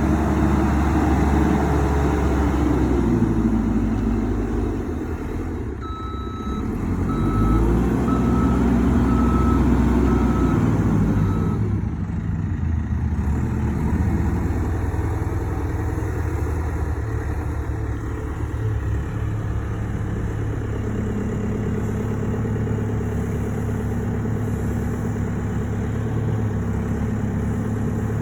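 JCB 3CX loader backhoe's diesel engine running and revving up and down twice, with its reversing alarm beeping about seven times near the middle as the machine backs up. The engine then settles to steady running.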